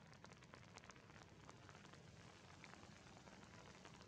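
Faint, steady rainfall, with many small drops ticking against the surfaces around.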